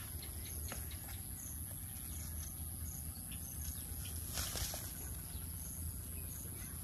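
Insects chirring steadily at a high pitch. About two-thirds of the way through there is a brief scratchy rustle as a kitten claws at plastic shade netting.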